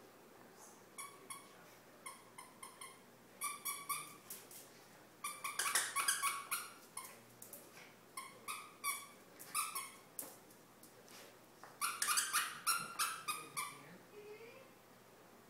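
A dog's squeaky toy bone squeaking again and again as the dog chews it. The squeaks come in quick runs separated by short pauses, and they are busiest about six seconds in and again twelve to thirteen seconds in.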